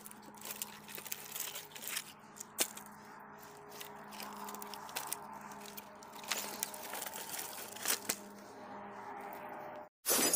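Dry wooden logs and branches being pulled from a woodpile: irregular cracks, snaps and scrapes over a faint steady hum. Just before the end, a loud glass-shattering sound effect cuts in.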